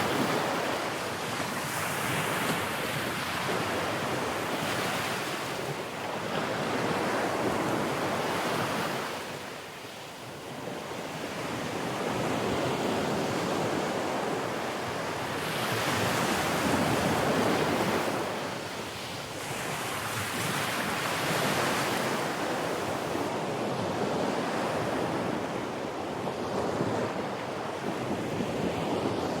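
Sea waves breaking and washing on the shore in slow surges every few seconds, with wind blowing across the microphone.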